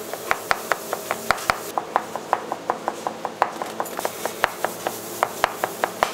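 Knife chopping food on a cutting board in a quick, steady rhythm, about five strokes a second.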